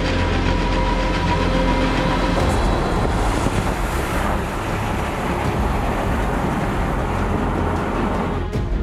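Kenworth grain semi-truck running on a highway: steady diesel engine and tyre noise, with a rushing hiss that swells about three seconds in.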